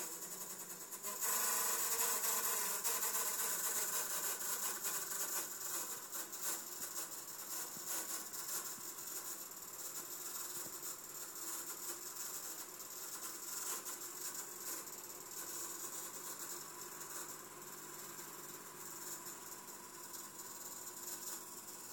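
Steady whirring hiss from a busted laptop running in the background, the noise of its fault. It grows louder about a second in, then slowly eases back.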